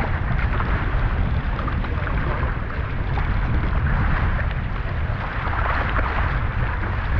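Wind buffeting the microphone over the steady rush of water along the hulls of a Hobie 16 catamaran under sail in strong wind.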